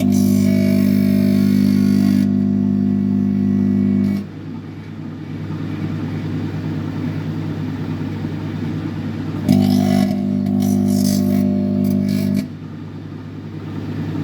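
Microwave oven running with a candle flame turned to plasma inside: a loud electrical hum and buzz from the magnetron that cuts out about four seconds in, leaving the quieter fan and turntable running, comes back about nine and a half seconds in and cuts out again near the end, as the oven cycles its power on and off.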